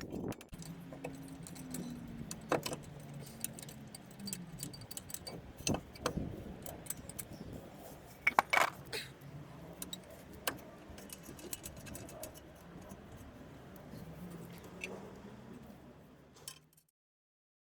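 Scattered metallic clinks and light taps, like tools and metal parts being handled, with a faint wavering hum underneath. The sound cuts off suddenly near the end.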